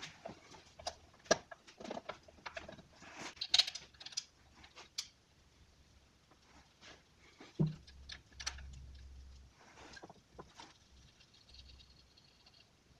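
Quiet, scattered clicks and knocks as a Honda distributor housing is handled and seated back onto the cylinder head, with one duller thump a little past halfway.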